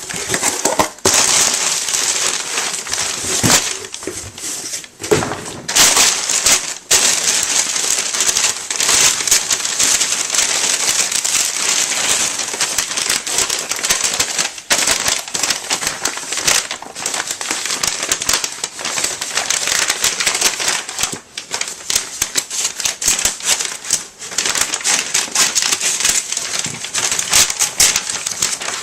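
Mailing packaging being torn open and crumpled by hand: continuous crackling and crinkling with many sharp clicks, breaking off briefly a few times.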